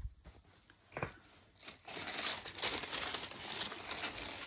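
Paper and bag packaging being handled, crinkling and rustling: quiet at first with one short rustle about a second in, then dense, continuous crinkling from just under two seconds in.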